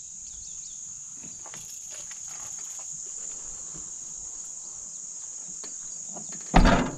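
Steady high-pitched drone of an insect chorus, with faint scattered rustles and clicks. A loud thump with rustling comes near the end.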